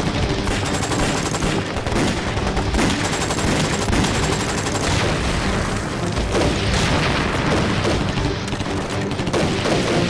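Massed rifle and machine-gun fire in a continuous barrage, the shots overlapping without a break.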